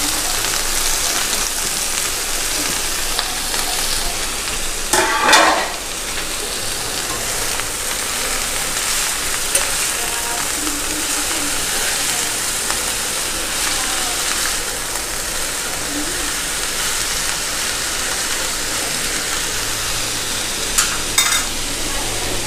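Chopped amaranth (thotakura) leaves frying in oil in a pan, a steady sizzle. A louder stirring scrape comes about five seconds in, and two short clicks near the end.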